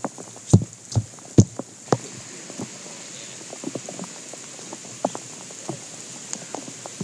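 Rain falling, with heavy drops striking close to the microphone: a run of loud, sharp taps in the first two seconds, then a steady rain hiss with scattered lighter drips.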